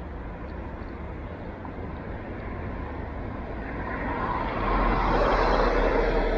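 Steady street traffic noise and wind rumble picked up from a moving bicycle. It swells louder about four seconds in and stays up to the end.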